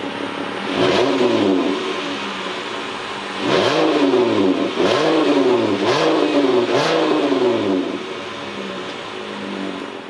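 Exhaust of a 2009 Dodge Grand Caravan's 3.8 L V6 at idle, blipped once about a second in and then four times in quick succession, each rev rising sharply and falling back, before settling to a steady idle.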